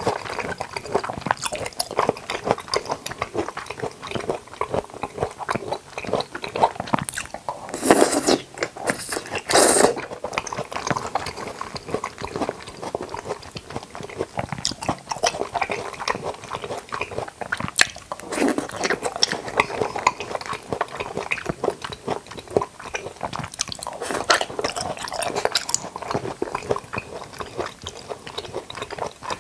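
Close-miked chewing and biting of food, a steady stream of small wet clicks and smacks, with louder bites about 8 and 10 seconds in.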